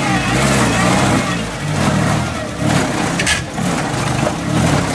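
Off-road 4x4's engine revving up and down under load as it crawls through a muddy ditch, with a brief high-pitched squeak about three seconds in.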